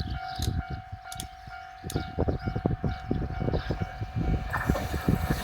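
Japanese railway level crossing alarm ringing its repeated 'kan-kan' bell, with irregular low thumps. About four and a half seconds in, the rushing noise of an approaching train comes in and grows.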